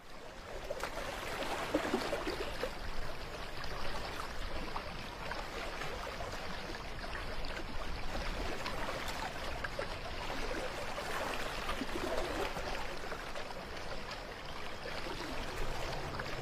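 Steady rushing of floodwater, an even wash of noise without breaks.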